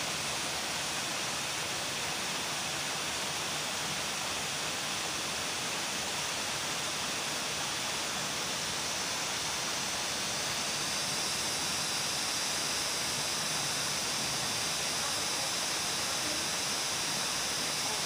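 Steady, even hiss of forest ambience with no distinct events, strongest in the high range and growing slightly louder about eleven seconds in.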